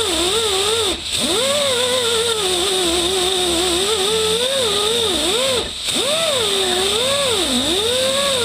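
Die grinder with a Scotch-Brite pad running against a transmission part. Its pitch rises and falls as the load changes, and it drops out briefly about a second in and again near six seconds.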